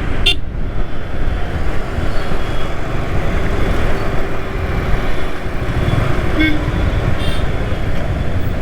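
Riding noise on a Yamaha R15 V3 motorcycle through a helmet-mounted camera: a steady rush of wind and engine and road rumble. Short toots from vehicle horns in traffic come about a quarter second in, and again about six and a half and seven seconds in.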